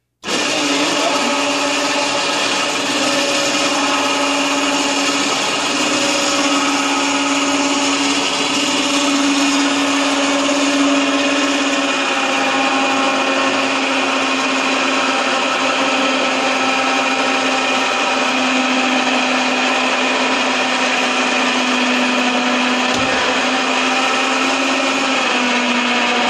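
Electric PWC-lift winch motor running steadily, winding in its line under light load as it pulls a personal watercraft in toward the ramp.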